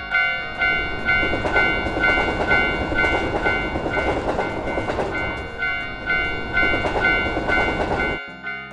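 Japanese railroad-crossing bell ringing "kan-kan" in two alternating tones, about two strikes a second. It is overlaid by the rumbling, clattering noise of a passing train, which cuts off suddenly near the end.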